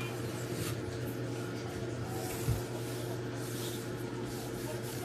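Light scraping and rubbing from hands or tools working on a laptop, with one dull thump about halfway through, over a steady low hum.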